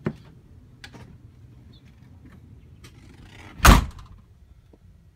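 A few light clicks and knocks, then one loud, short thump about three and a half seconds in.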